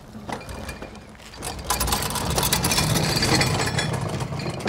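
Boat trailer being rolled out by hand, its tyres rumbling over the ground and the frame rattling. The noise builds about one and a half seconds in and fades near the end.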